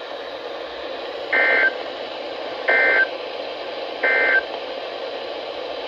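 NOAA Weather Radio EAS end-of-message (EOM) tones: three short, identical bursts of SAME digital data buzz, about a second and a third apart, over steady radio hiss. They mark the end of the warning broadcast.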